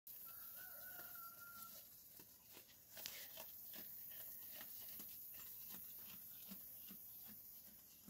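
A rooster crows once near the start, a single steady call about a second and a half long. Then a Dorper sheep pulls grass and hay from a slow-feed hay net, making dry crackling and rustling, with soft regular thuds about two and a half a second in the last couple of seconds.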